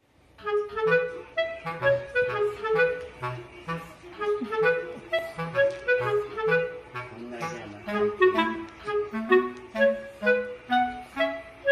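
Light instrumental background music: a woodwind melody of short, bouncy notes over a stepping bass line, fading in about half a second in.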